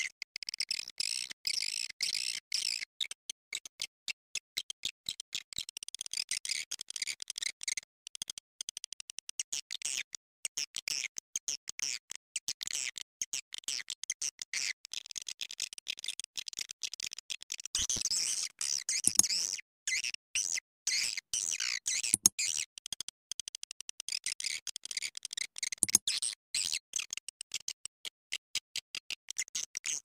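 Swiftlet call sound, the lure recording played at swiftlet houses to draw swiftlets in to roost and nest: a dense, rapid chatter of high twittering chirps broken by many short gaps. A few louder clicks stand out in the second half.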